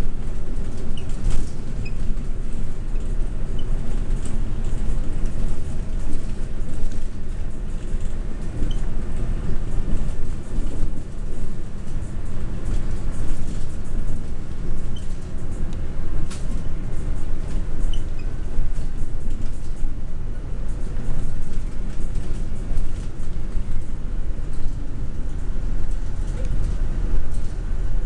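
Interior of a Hino HU3K city bus under way: a steady engine and road rumble, with occasional light clicks and rattles from the body.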